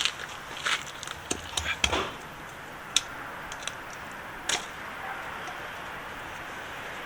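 Sharp clicks and knocks of hand tools and metal parts being handled on a gearbox while the release bearing is taken off, about eight of them, stopping about four and a half seconds in, leaving a steady background hiss.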